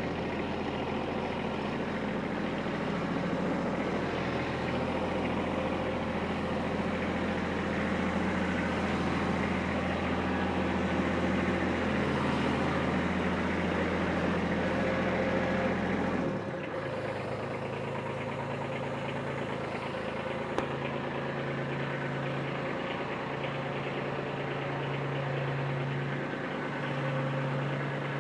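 Kubota B2301 compact tractor's three-cylinder diesel engine running steadily while the tractor is backed into place. About 16 seconds in, the engine note changes abruptly: the deep low rumble drops away and the engine carries on at a different, steady note.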